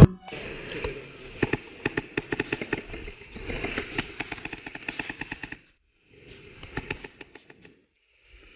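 Airsoft guns firing in rapid bursts of sharp snapping shots, thinning out after about five and a half seconds, with a few more shots near the end.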